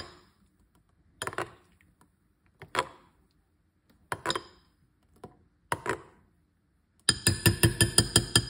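A metal spoon clinks against a glass mixing bowl about every second and a half, five times, as juice is stirred and scooped. About seven seconds in, music with a fast, steady beat starts and becomes the loudest sound.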